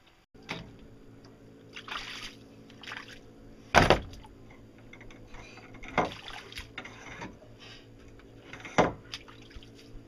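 Knocks and clatters from pipe posts being handled and fitted under a solar panel frame, with three louder knocks a few seconds apart over a steady low hum.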